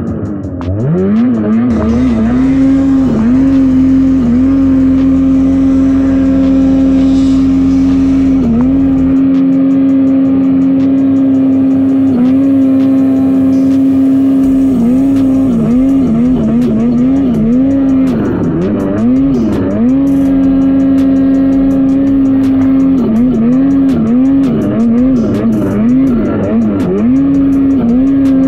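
Ski-Doo Summit 850 snowmobile's two-stroke twin engine running hard at high revs in deep snow. It holds a steady high pitch with many quick dips and recoveries as the rider eases off and gets back on the throttle, in a busy run of dips in the second half.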